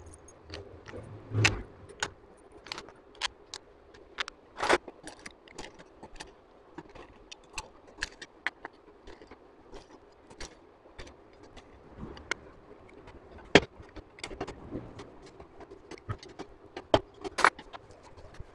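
Irregular metallic clicks and clinks of a hand tool and steel bolts on the aluminium clutch cover of a Honda CG125 engine as the cover bolts are fitted and tightened, a few knocks louder than the rest.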